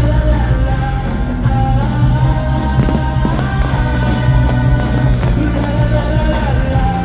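Loud orchestral-rock show music with sustained singing or choir-like voices over a heavy low end, played over the fireworks show's sound system.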